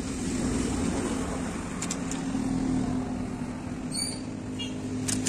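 Street traffic noise: a motor vehicle engine running close by with a steady low hum. A few short clicks and a brief high chirp about four seconds in.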